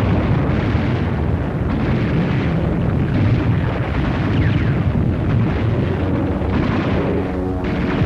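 Battle sound effects on a 1940s film soundtrack: a dense, continuous din of explosions and gunfire.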